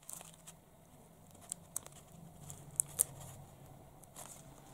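Faint rustling and light ticking of paper as a small homemade paper sticker is handled and pressed onto a notebook page, with a few short sharp ticks, two of them close together about three seconds in.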